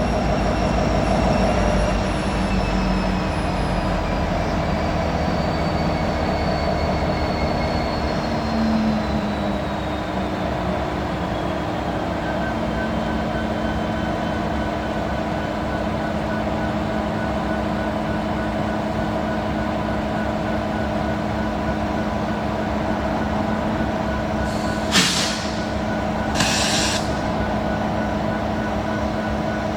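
Freight train rolling past: steady rumble and clatter of steel wheels on rail, with high thin squealing tones from the wheels, one slowly falling in pitch over the first half. A sharp click and a short hiss come near the end.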